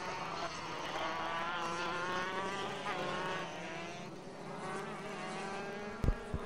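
Two-stroke racing kart engines running at a distance, their revs rising and falling as they go through the corners, several engines overlapping. A couple of brief low thumps about six seconds in.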